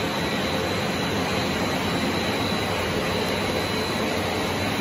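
Bread crumb extruder line running steadily: an even mechanical drone and hiss with a faint constant high whine.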